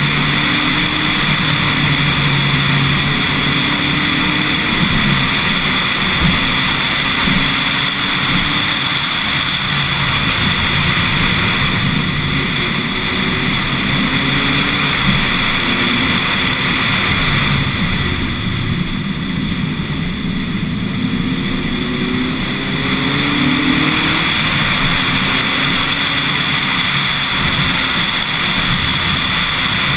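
Lotus Elise S1 111S's Rover K-series 1.8 VVC four-cylinder pulling hard up a winding mountain climb. The engine note rises and falls through gear changes under heavy wind and road noise. It eases off for a few seconds around two-thirds of the way through, then climbs in pitch again.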